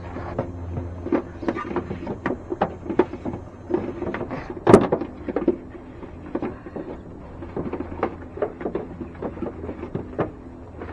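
Scattered clicks, taps and rustling from hands working among wiring under a pickup's hood, with one sharp knock a little under five seconds in.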